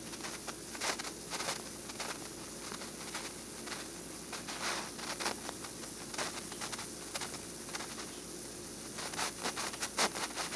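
Oxy-acetylene torch flame hissing steadily as steel plates are welded with filler rod, with many small crackles and pops from the molten puddle that come thicker near the end.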